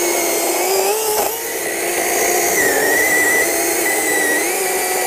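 Greenworks cordless electric chainsaw cutting through a log. It gives a steady motor-and-chain whine whose pitch dips and recovers as the chain bites into the wood.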